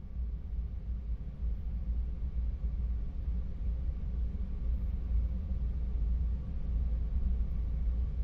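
Steady low rumble in the cabin of a taxiing Airbus A330-300, its Rolls-Royce Trent 700 engines at idle thrust, with faint steady engine tones above the rumble.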